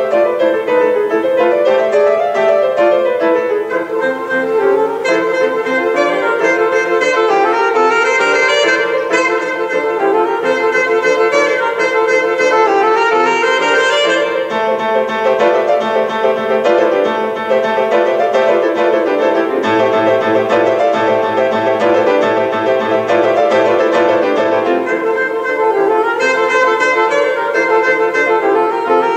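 Alto saxophone and grand piano playing a jazz duet.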